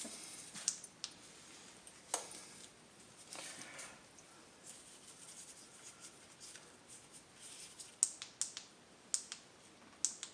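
Faint handling noises: scattered light clicks and scratches, with a short scraping patch about three and a half seconds in and a run of sharper clicks near the end.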